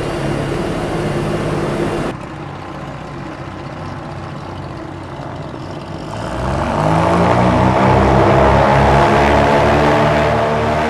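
Goodyear blimp's propeller engines running, with a sudden drop in level about two seconds in; about six seconds in the engines speed up, rising in pitch into a louder steady drone.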